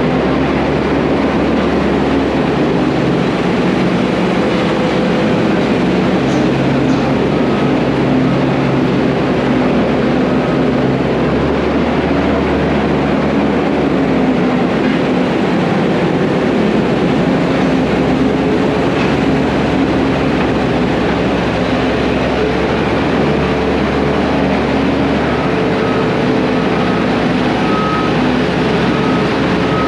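Heavy diesel equipment running steadily under work. A repeating high beep sounds for a few seconds twice: a little after the start and near the end.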